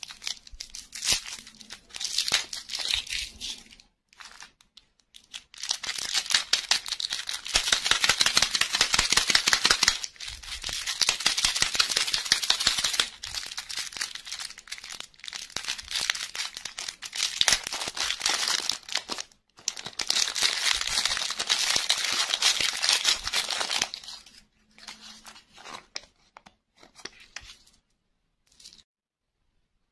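Plastic candy wrappers crinkling and tearing as hands unwrap a lollipop and open a small sweets packet, in long stretches of dense crinkling with short pauses, thinning to a few light rustles near the end.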